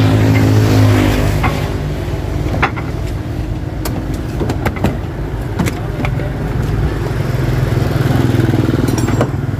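A vehicle engine idling steadily, with a low hum that swells a little near the start and near the end. Scattered sharp clicks and knocks come from hands working on the scooter.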